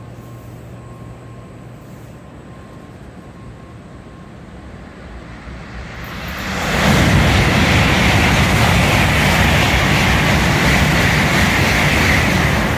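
N700A Shinkansen train passing at high speed without stopping: a loud rushing roar of wind and wheels. It swells up sharply about six seconds in, holds for about six seconds and starts to die away at the very end.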